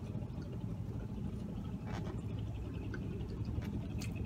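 Close-up chewing of cheesy curly fries, soft wet mouth sounds with a few sharp clicks, over a steady low hum in a car cabin.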